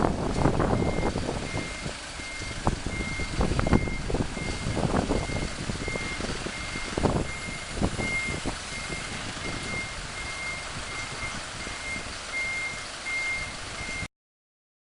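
A tow truck's reversing beeper sounding a steady high beep about twice a second, over engine rumble and several sharp clunks and knocks in the first half. The sound cuts off abruptly just before the end.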